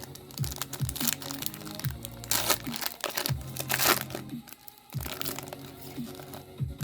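Background music with a steady beat, under a card pack's wrapper crinkling and being torn open in two bursts, about two and a half and four seconds in.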